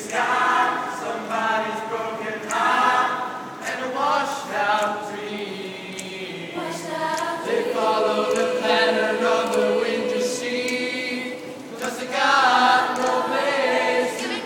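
Youth choir of mixed girls' and boys' voices singing a cappella, with one long held note in the middle.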